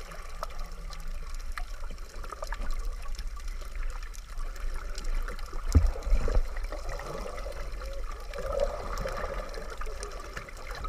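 Underwater sound picked up by a camera submerged in the sea: muffled water movement with faint scattered clicks, and two low thumps about six seconds in.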